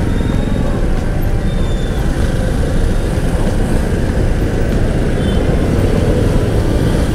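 Steady road-traffic noise in a traffic jam: a continuous low rumble of idling and creeping engines.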